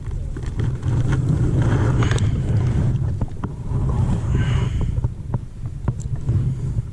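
Wind buffeting the microphone, a steady low rumble, with scattered small clicks and knocks.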